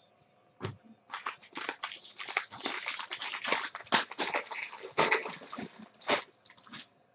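Foil trading-card pack wrapper crinkling and crackling as it is ripped open by hand. The crinkling starts about a second in and stops near the end.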